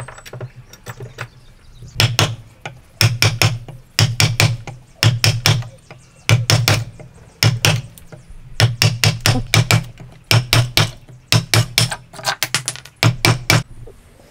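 Mallet striking a wood chisel repeatedly as it chops into hardwood clamped to a workbench. The blows come in quick groups of two to four with short pauses, each a sharp crack over a dull thud, and stop near the end.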